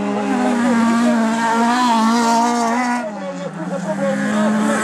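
Several small autocross race cars' engines running hard at high revs on a dirt track, their pitch rising and falling as they race past. The sound drops a little about three seconds in.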